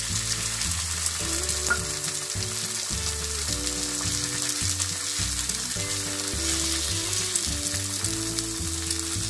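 Eggs frying in hot oil in a nonstick pan among sautéed vegetable strips, sizzling and crackling steadily, with a spatula now and then pushing and scraping through the vegetables.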